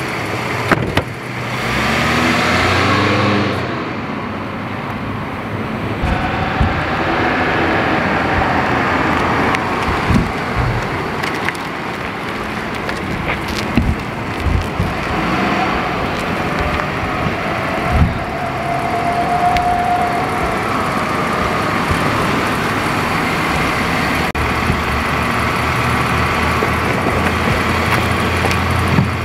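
A car door shuts with a sharp knock, then the car pulls away with its engine rising and falling in pitch as it drives off, over steady outdoor noise. Near the end a car engine runs at idle close by.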